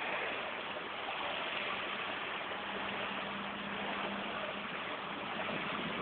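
Steady ambient noise of an indoor swimming-pool hall: an even wash of water and air noise with a constant low hum underneath.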